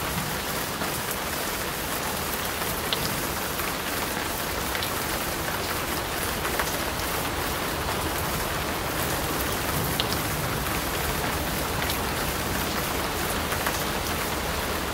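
Steady rain falling on a hard surface: an even hiss with scattered sharper drop ticks.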